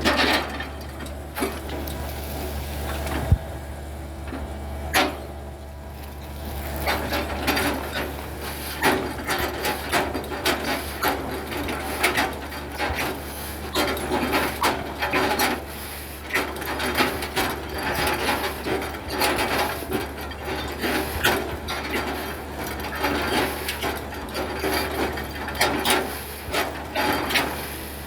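Excavator's diesel engine running steadily under many woody knocks and cracks as it chops felled oil palm trunks into chips. The knocks come thick and fast from about seven seconds in.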